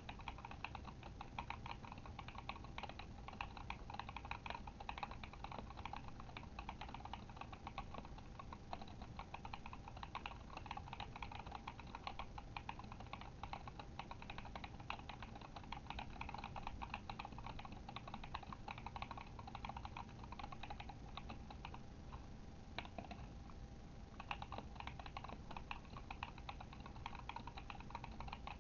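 Steady fast typing on a Kemove Shadow mechanical keyboard with Glorious Panda tactile switches: a dense run of key clacks, with a brief pause a few seconds before the end.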